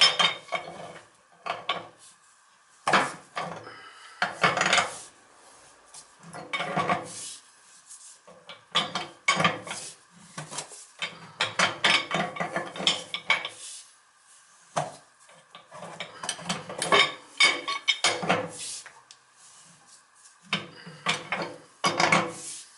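Large pipe wrench turning a threaded steel pipe fitting into the boiler tapping: irregular metallic clanks and scrapes as the jaws bite and are repositioned, in uneven spurts through the whole stretch.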